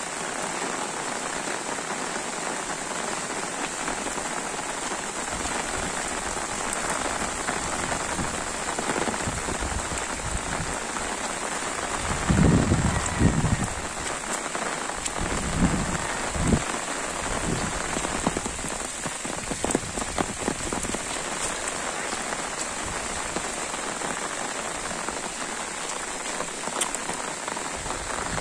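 Steady rain falling on leaves and a muddy dirt road, with a few louder low bumps about halfway through.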